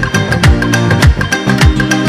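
Background music with a steady beat: deep drum hits about twice a second under sustained pitched notes.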